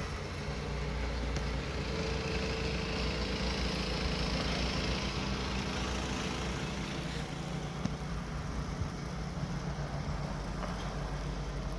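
Motor vehicle engine running with a steady low hum; a rushing noise swells and fades over the first half.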